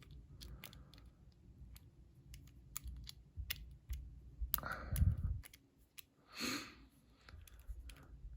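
Faint, irregular small clicks and scrapes of a metal lock pick being worked inside a lock, with a couple of louder rustling handling noises around the middle.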